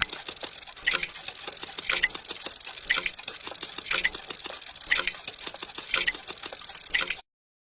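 Heartbeat picked up by a microphone against the body, pulsing about once a second under constant crackling contact noise.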